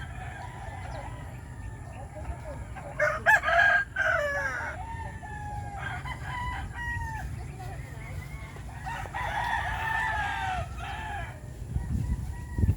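Several chickens calling over each other: roosters crowing with drawn-out gliding calls and hens clucking. The loudest crow comes about three seconds in and another long one near the end, followed by a couple of low thumps.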